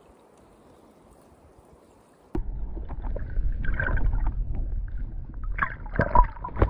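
Water heard through an underwater camera: a muffled low rumble with gurgling and sloshing, starting abruptly about two seconds in, as a fish thrashes in a gill net.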